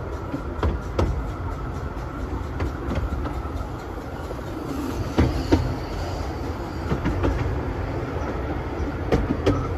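A 15-inch gauge steam train passing close on the next track: a steady low rumble of wheels with irregular clicks over the rail joints. There is a brief hiss of steam about five seconds in as the locomotive goes by, and its carriages keep clicking past after it.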